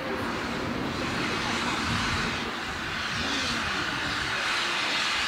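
Southern Railway S15 steam locomotive No. 506 moving off slowly with a steady rushing hiss of steam, its cylinder drain cocks venting at the front. The hiss grows a little louder about two seconds in.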